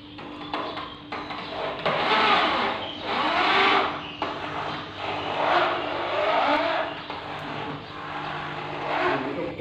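Electric drill driving screws into an aluminium door hinge, speeding up and slowing down in several pulses.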